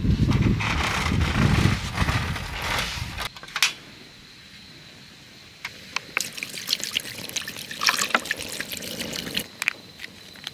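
Wind buffeting the microphone as a loud low rumble for about the first three seconds, then cutting off suddenly. After a short lull come scattered light clicks and crackles from cooking at a wok as meat and sauce go in.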